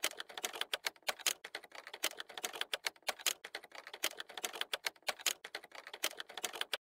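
Typing sound effect: a rapid, irregular run of key clicks, several a second, that stops abruptly near the end.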